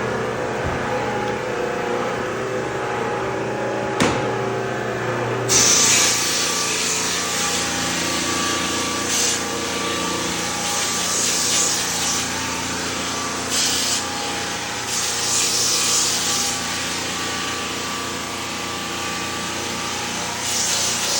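Floor sander running on parquet: a steady motor hum, with the abrasive's hiss against the wood setting in about five seconds in and then surging and easing as the machine is worked across the floor. A single knock about four seconds in.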